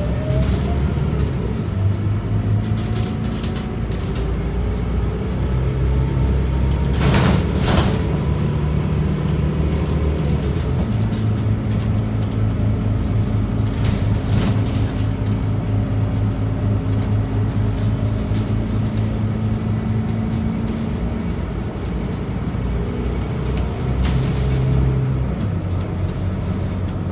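Scania K94UB bus's nine-litre six-cylinder DC9 diesel running under way, heard from inside the cabin, its engine note shifting in steps as the bus speeds up and slows. A short loud hiss comes twice about seven to eight seconds in.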